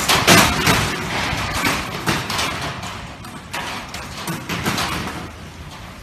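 Typhoon-force wind gusting against a shuttered window, the closed shutter rattling and knocking in its frame. The gusts are strongest in the first second and ease off after.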